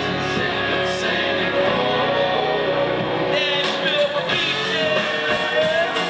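Amplified live country band over the stage PA: a singer with guitars and the full band playing a song.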